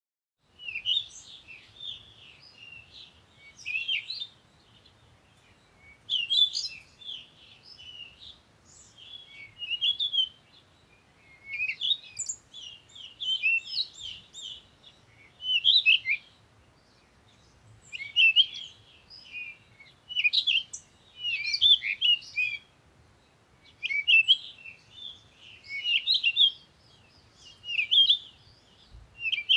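Small birds chirping and twittering in quick clusters, a burst every second or two, over a faint low hum.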